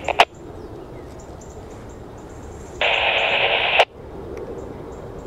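Two-way radio scanner: a transmission cuts off with a squelch click, then low hiss. A few seconds in comes about a second of radio static that ends in a sharp click.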